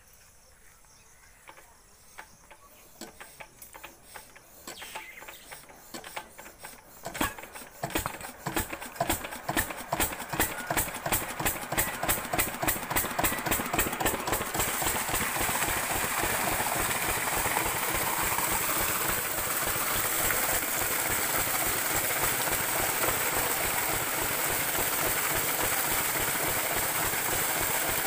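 Single-cylinder stationary diesel pump-set engine being hand-cranked to a start: faint, slow knocks at first, then its firing beats grow louder and quicker about seven seconds in and settle into a steady run. From about halfway a steady rush of water pouring from the pump's outlet pipe sounds along with the engine.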